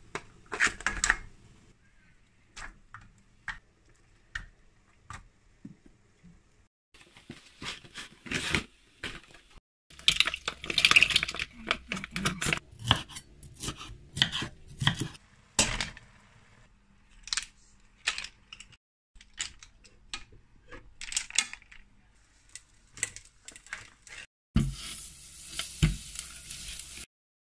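Kitchen prep clatter: cooked crab and prawn shells knocked against an enamelled pan, then a knife cutting bell pepper on a wooden chopping board. Near the end comes a steady sizzle of butter melting in a steel pot.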